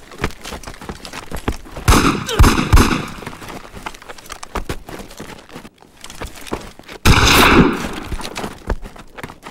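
Battle gunfire from a war-film soundtrack: a cluster of sharp shots about two seconds in, then a longer, louder burst of fire about seven seconds in, with smaller knocks between them.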